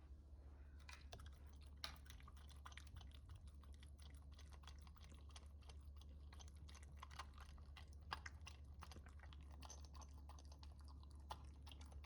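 Dog eating yogurt: a faint, fast run of small licking and chewing clicks, with a steady low hum underneath.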